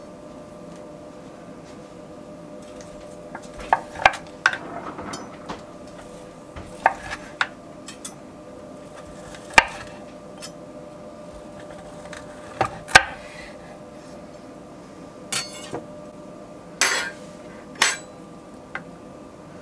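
Knife and fork clicking and knocking on a wooden cutting board while a rack of venison is sliced into chops, in scattered sharp taps with the loudest knocks near the middle. A faint steady hum runs underneath.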